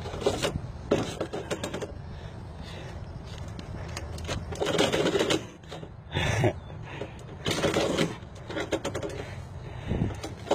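A handful of paper mail being shuffled and handled in a series of short rustles and scrapes. Near the end, an envelope is pushed into a metal door mail slot.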